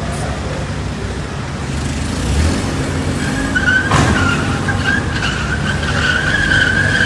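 Car engine running hard, joined about halfway through by a sustained, high tyre squeal that lasts to the end. There is a single sharp knock a little after the middle.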